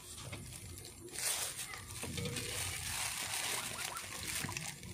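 Thin clear plastic bag crinkling as it is handled and filled with cooking oil, a dense rustling that sets in about a second in and runs until near the end.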